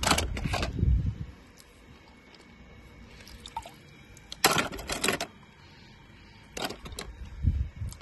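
Wet toy cars clicking and clattering together as they are handled, in three short bouts: at the start, about four and a half seconds in, and near the end.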